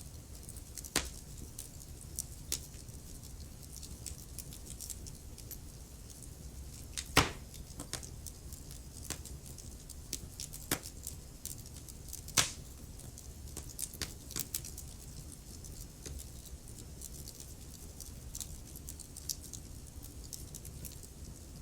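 Wood fire crackling in a fireplace: irregular small snaps and pops, with two louder pops about seven and twelve seconds in, over a low steady rumble.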